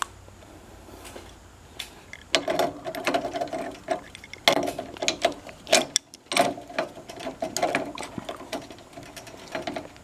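Adjustable wrench working the chain-tension bolt on a garage door opener rail: irregular metal clicking and scraping that starts about two seconds in. The wrench is not getting a good grip on the nut.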